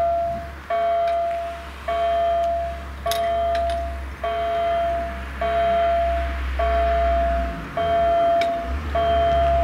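Level-crossing warning bell sounding a repeated ringing tone, about one ring every second, as the crossing closes for an approaching train.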